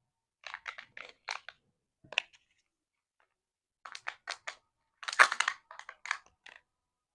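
Kinder Joy egg packaging being handled and opened: short crinkling, crackling bursts of plastic and foil in quick clusters, with a louder run of crackles about five seconds in.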